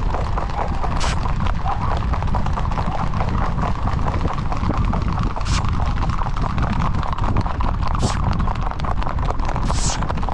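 Horses' hooves clip-clopping rapidly on a paved road, heard from the saddle over a steady low rumble. A few short hisses stand out along the way.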